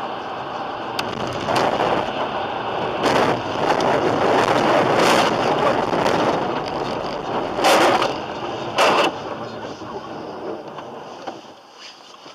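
Steady road and wind noise of a moving vehicle, with a sharp click about a second in and several louder rushing bursts around three, seven and a half and nine seconds in, fading near the end.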